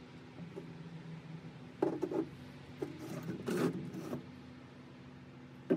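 Rubbing and handling sounds on an aluminium rocker box, in two short bouts about two and three seconds in, then a single sharp knock near the end, over a steady low hum.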